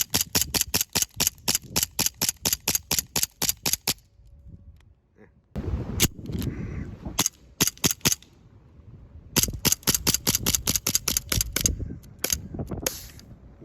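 Elite Force 1911 A-1 CO2 blowback airsoft pistol fired semi-automatically as fast as the trigger can be pulled, sharp pops at about five a second. A long string, a pause, a few single shots, then another fast string and a last few shots.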